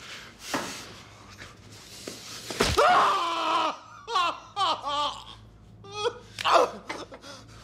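A man gasps for breath, then a sharp thud comes about two and a half seconds in as a screwdriver is driven into his thigh. A long, loud scream of pain follows, then broken, sobbing cries.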